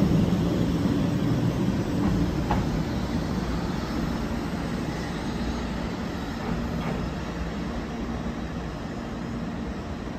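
JR West 500-7000 series Shinkansen pulling out and running away along the platform track. Its running noise is steady at first and fades gradually as the train recedes.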